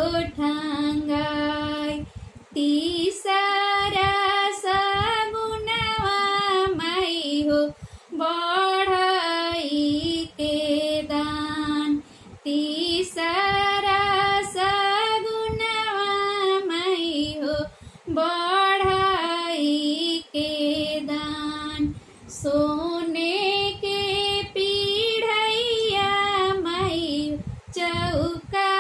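A woman singing a Bhojpuri shagun geet, a traditional wedding song, solo, in long drawn-out phrases with short breaks for breath every few seconds.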